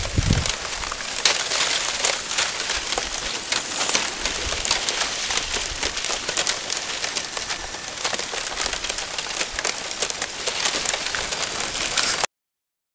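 Slush and thin broken ice at the edge of a freezing lake, crackling and tinkling densely as it shifts in the water, with a low thump at the start. It cuts off suddenly near the end.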